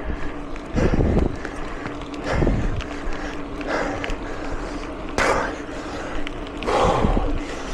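Mountain bike riding over rough ground: steady rolling and rattling noise with louder rushing bursts about every second and a half, and a faint steady hum underneath.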